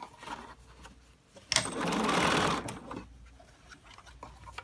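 BERNINA 770 sewing machine stitching in one short run of about a second, starting with a sharp click about a second and a half in. Quiet clicks come before and after it as the machine stops with the needle down so the work can be shifted.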